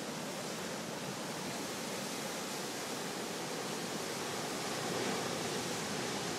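Large ocean surf breaking and washing over shoreline rocks: a steady rush of whitewater that grows slightly louder about five seconds in.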